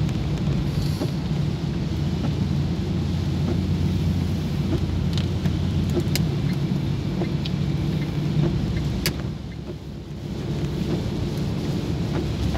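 Inside a moving car on a wet road in rain: a steady rumble of engine and tyres, with rain on the windshield and a few sharp ticks. The noise drops briefly about three-quarters of the way through, then picks up again.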